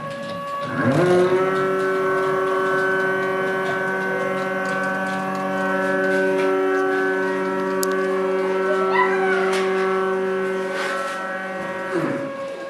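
Drive motors of a filament winding machine whining steadily while cross-winding a carbon-fibre tube. About a second in and again near the end, the pitch dives and climbs back as the drive slows, reverses and speeds up again, typical of the carriage turning around at the end of a pass.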